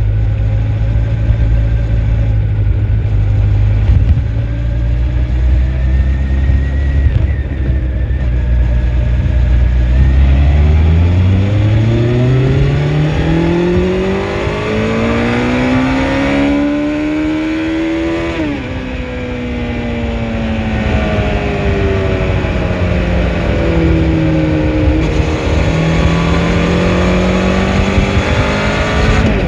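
2004 Honda CBR1100XX Blackbird's inline-four engine running at low, steady revs for about ten seconds, then pulling in one long rising rev to high rpm. The revs drop sharply a little past halfway and fall away, then climb again near the end.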